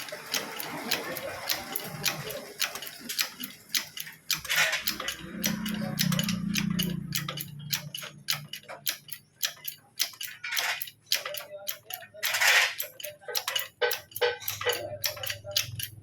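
Hand tools working on metal during front-suspension bushing work: a run of irregular sharp clicks and taps, several a second. Short hissing or scraping bursts come about four seconds in and twice near the end.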